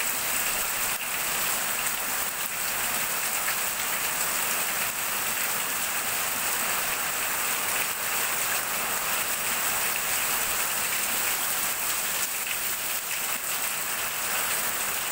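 Heavy rain pouring down on a corrugated roof, with water streaming off its edge in many runnels: a steady, unbroken hiss.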